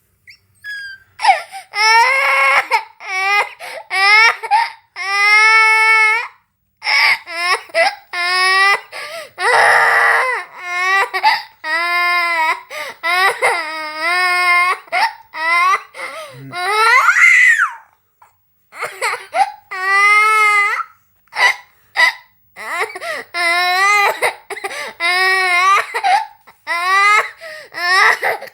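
Young child crying hard in repeated high, wavering wails, each a second or two long, broken by short gasps for breath, with a brief pause about two-thirds of the way through.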